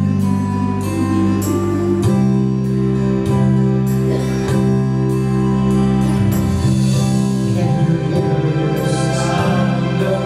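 Slow worship music on an electronic keyboard: held chords that change every second or two.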